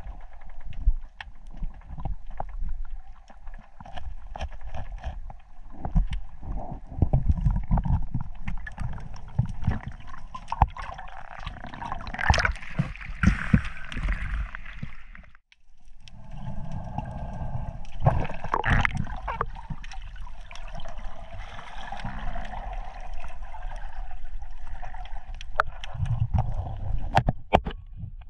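Sea water sloshing and gurgling, with many small knocks and clicks over a low rumble. The sound breaks off briefly about halfway through, then carries on.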